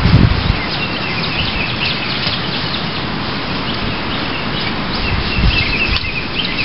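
Small birds chirping repeatedly over a steady rush of outdoor noise, with two low thumps, one just after the start and one about five and a half seconds in.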